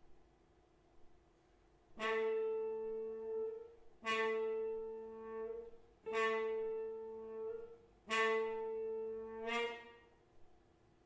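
Trombone and electric guitar playing the same pitched note in unison four times, about two seconds apart, starting a couple of seconds in. Each note is sharply attacked, fades, then swells briefly before it breaks off; the last swell is the strongest.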